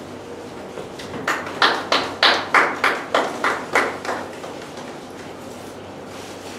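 Hand clapping: about ten sharp claps in an even rhythm of roughly three a second, starting about a second in and stopping after about three seconds, applause for an award.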